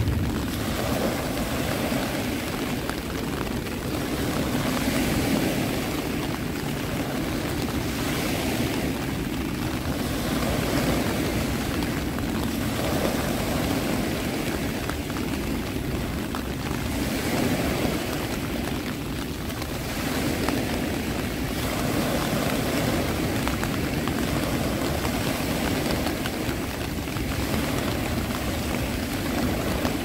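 Sea surf: a steady rush of waves, swelling and easing every few seconds.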